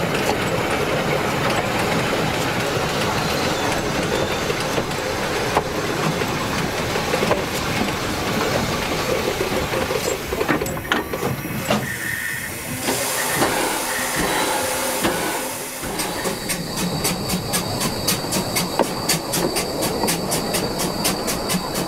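Narrow-gauge railway wagon rolling along the track behind the steam locomotive Spreewald, its wheels rumbling and clattering on the rails. A hiss of steam comes in past the middle, and near the end an even ticking beat, about three a second, takes over.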